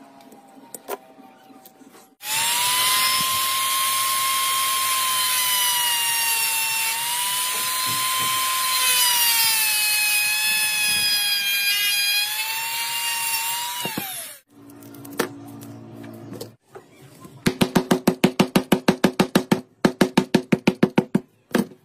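Small rotary tool spinning a thin cutting disc with a high whine, cutting into a dry-cell battery's metal casing; the pitch sags a little under load and falls away as the tool spins down about two-thirds of the way through. Near the end, a rapid run of sharp knocks, about ten a second, as the opened battery is worked on a wooden block.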